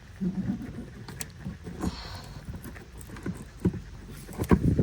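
Plastic trim clips being pried out and a plastic trim panel being handled, heard as scattered clicks and knocks. A quick cluster of louder knocks comes near the end.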